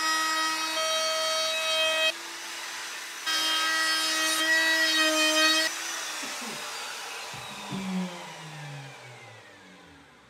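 Compact trim router running at full speed, cutting the edge of a plywood dresser top, with a short quieter spell about two seconds in. About five and a half seconds in it is switched off, and its high whine falls steadily in pitch and fades as the bit spins down. A knock comes near eight seconds.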